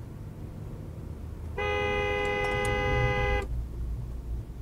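A car horn sounding one steady, held blast of just under two seconds, starting about one and a half seconds in and cutting off sharply. It sits over the low hum of the car's engine and tyres, heard from inside the cabin.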